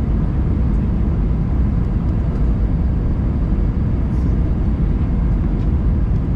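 Steady cabin noise inside an Airbus A319 airliner: an even, low rush of engine drone and airflow, with no distinct events.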